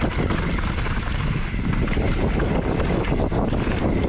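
YT Tues downhill mountain bike riding fast down a dirt forest trail: wind rushing over the camera microphone, tyres on dirt, and quick rattles and knocks of chain and frame over bumps.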